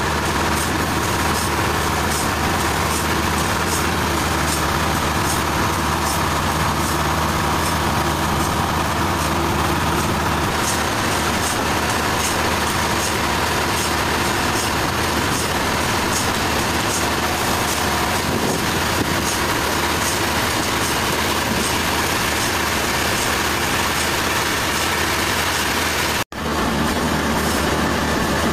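Sawmill machinery running steadily: a constant engine note with a steady whine and a dense mechanical noise. It shifts slightly about a third of the way through and breaks off for a split second near the end.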